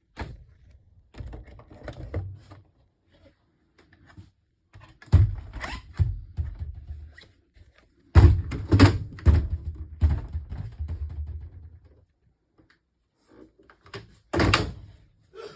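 A run of thuds and knocks with rattling in between, like doors and fittings being handled inside a motorhome. The sharpest bangs come about five seconds in, around eight to nine seconds, and near the end.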